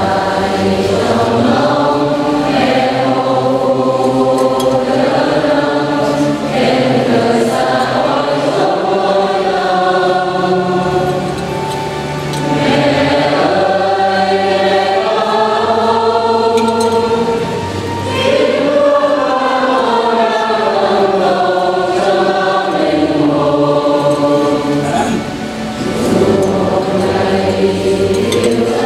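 Choir singing a hymn, several voices together in long sustained phrases with short breaks between them.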